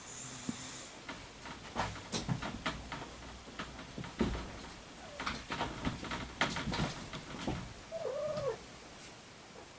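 A three-week-old orange tabby kitten gives one short mew whose pitch rises and then falls, about eight seconds in, after a stretch of scattered soft clicks and knocks.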